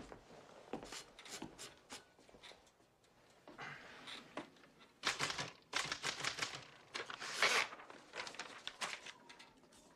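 Sheets of erasable typing paper being handled and rustled, with light clicks and taps, loudest in a run of rustles a little past the middle.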